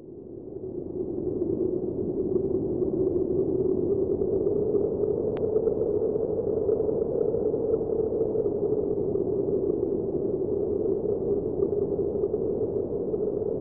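Steady synthesized electronic drone that fades in over about the first second and then holds on one low-mid pitch, with a faint click a little over five seconds in.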